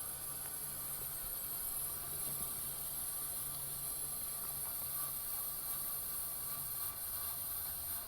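R22 refrigerant hissing steadily through a 1965 Fedders Weather Wheel window air conditioner as its pressures equalize after the compressor is shut down, with a faint low hum that fades near the end.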